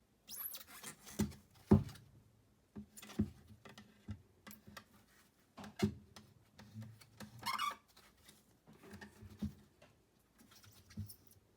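Irregular knocks, taps and scrapes of pieces of bark and plastic tubs being moved about and set down inside an empty terrarium, with the sharpest knocks about two seconds and six seconds in.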